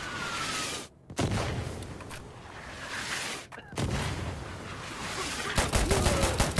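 Gunfire: a loud bang about a second in and another near four seconds, each trailing off in a long rumble, then a fast run of automatic gunfire, several shots a second, in the last second.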